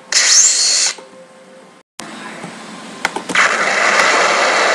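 Stock cartoon sound effects: a loud hissing burst lasting under a second at the start, then, after a few sharp clicks, a loud explosion about three seconds in that slowly fades away.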